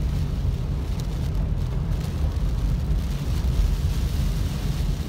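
Steady road noise inside a car's cabin while driving on a wet, flooded road: a low rumble of engine and tyres on wet pavement.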